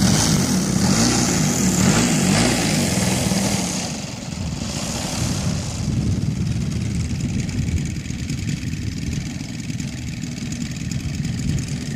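Engine of a large-scale RC Pitts Challenger III biplane running as it taxis out and rolls down the runway, loudest in the first few seconds and then dropping off as the plane moves away.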